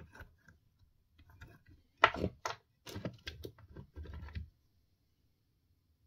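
A quick run of clicks and knocks from small hard parts being handled, with short scraping rustles. It starts about two seconds in and stops after about two and a half seconds.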